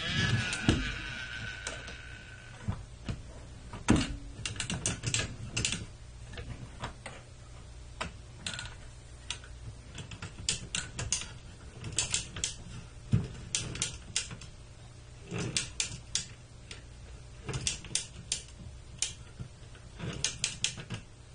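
Clusters of quick plastic clicks and rattles from a toy forklift being moved by hand, coming in irregular bursts of several clicks. A fading sliding tone sounds in the first two seconds.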